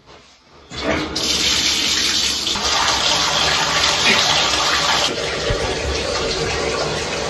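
A bathtub faucet turned on, with water gushing steadily from the tub spout into the tub. The flow comes on about a second in and keeps running.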